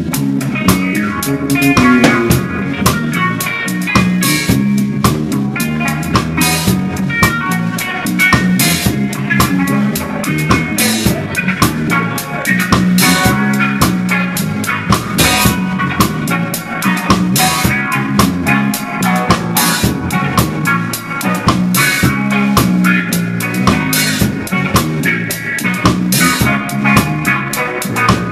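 Live reggae band playing, heard from right beside the drum kit: drums and cymbals are close and loud over the rest of the band, with regular strikes keeping a steady beat.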